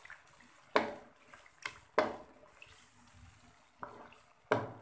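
Wooden spatula stirring a thick curry of beef liver pieces in a wok: about five short knocks and scrapes against the pan, with wet sounds from the gravy.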